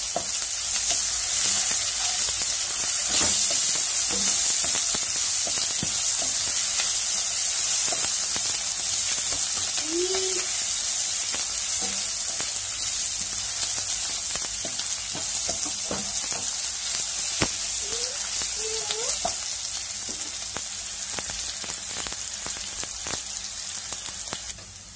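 Sliced onions, green chillies and curry leaves sizzling steadily in hot oil in a nonstick pan, a South Indian tempering with mustard seeds and dal, with occasional light clicks of a wooden spatula stirring.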